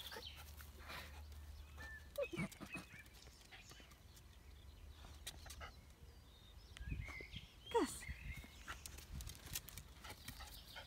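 A Westie terrier giving a few short, faint falling whines, one about two seconds in and another near eight seconds, with small scuffling clicks between them.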